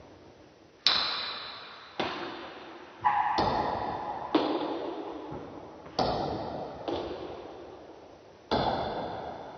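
Table tennis rally: the celluloid ball being struck by the paddles and bouncing on the table, about eight sharp knocks at irregular spacing, each followed by a long ringing tail.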